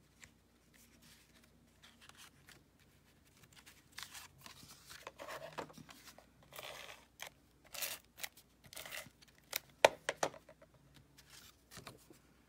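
Sheets of cardstock being handled on a tabletop: short rustles and scrapes as the paper is picked up, slid and laid down, with a sharp tap a little before the end.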